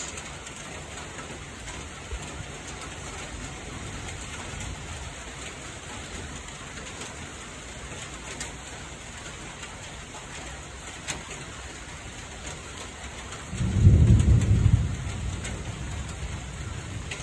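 Steady rain falling, with a roll of thunder rumbling low and loud for a second or two near the end.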